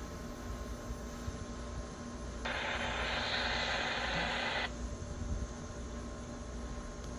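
A burst of hiss, like radio static, lasting about two seconds: it switches on sharply a little over two seconds in and cuts off just as sharply. A steady low rumble and faint hum run underneath.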